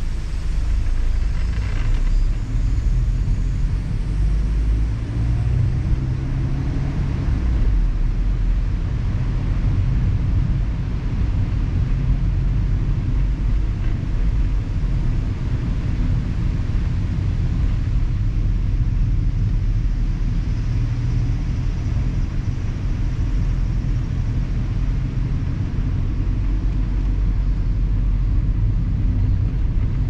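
Mazda Roadster (ND) on the move: a steady low rumble of engine and road noise.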